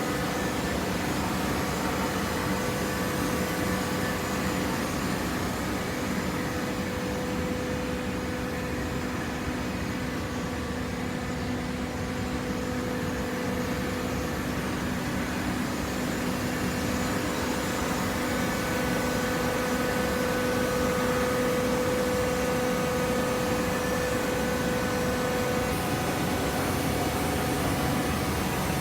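Horizontal paper baling press running: a steady machine hum from its motor and hydraulic pump, with a faint constant whine, getting a little louder in the second half.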